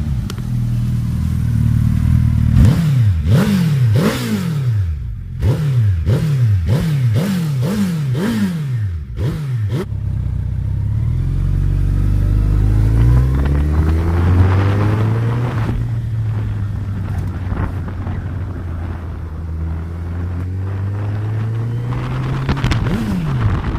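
Suzuki Hayabusa GSX1300R's inline-four engine through a Scorpion aftermarket exhaust, blipped in a rapid series of sharp revs and then pulling steadily as the bike rides away and builds speed, with one more quick rev near the end.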